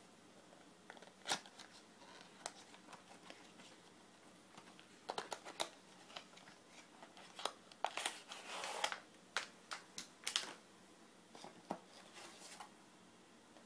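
Cardboard box and inner packaging of an iPod shuffle Dock being handled and opened. Scattered sharp clicks and taps come with crinkling and rustling of the wrapping, busiest from about 8 to 10 seconds in.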